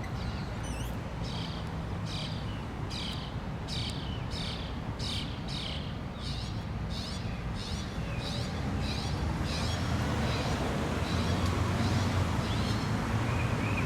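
A small bird chirping in a quick repeated series, about two chirps a second, fading away over the last few seconds, over a steady low rumble of distant road traffic.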